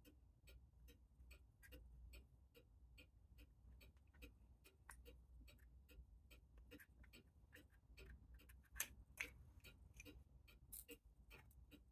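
Faint, rapid, even ticking of a clock escapement, about four ticks a second. A few louder metallic clicks in the second half come from the brass mainspring barrel and aluminium sleeve being handled.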